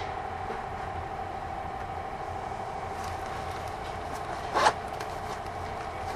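Kintetsu 1000 series electric train standing at the platform with its doors open, its onboard equipment giving a steady mid-pitched hum. A single short, sharp sound stands out about four and a half seconds in.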